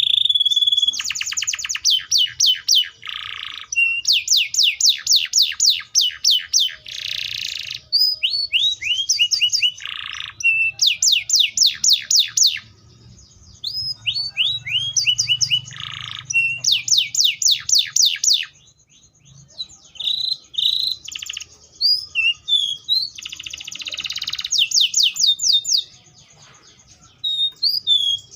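Canary (Serinus canaria) singing: fast runs of repeated high down-sweeping notes, about eight a second, broken by buzzy notes and short pauses.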